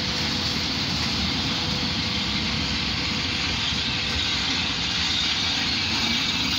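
Electric locomotive 111Ed-005 moving slowly into a station siding: a steady rushing noise over a low rumble, growing slightly louder near the end.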